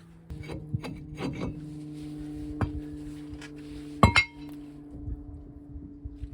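Metal tools and brake parts clinking and knocking while a truck's front brake is taken apart, with one loud ringing metal clank about four seconds in. A steady low hum runs underneath.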